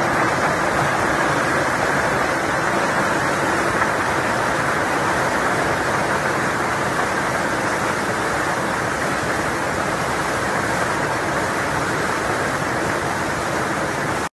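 Heavy hail and rain pelting down in a thunderstorm, a steady dense hiss that does not let up.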